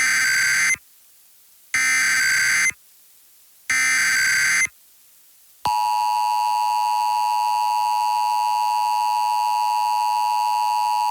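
Emergency Alert System tones. Three one-second bursts of digital SAME header data, about a second apart, are followed from about six seconds in by the steady two-tone EAS attention signal. Together these tones mark the start of an emergency alert broadcast.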